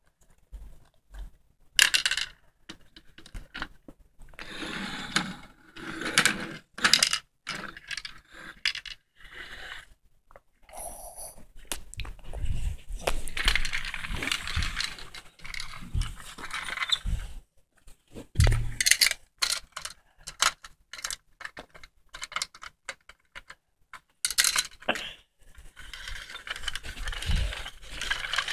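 Plastic toys being handled and moved about: repeated clicking, clattering and scraping, with a small metal keyring jingling and a few dull thumps.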